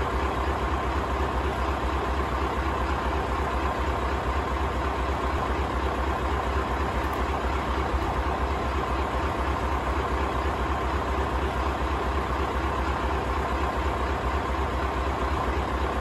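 Scania LBS141's 14-litre V8 diesel idling steadily, with no change in engine speed.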